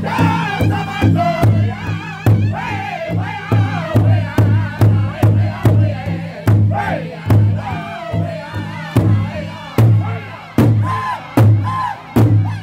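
Powwow drum group singing in high, loud voices over a big hide drum, several men striking it together in a steady, fast beat of about three strokes a second. After about ten seconds the singing thins and the strokes come further apart.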